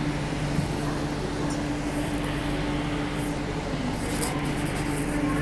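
Steady hum of a metro train standing at a station platform with its doors open: air-conditioning and equipment drone with two unchanging low tones, and a single light knock about half a second in.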